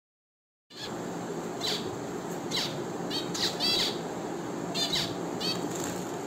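Caged finches calling: short, sharp chirps that sweep down in pitch, about eight to ten scattered through a few seconds, over a steady background hiss. The sound cuts in suddenly after a moment of dead silence.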